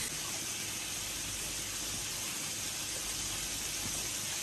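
Meat sizzling on a tabletop barbecue grill: a steady, even hiss.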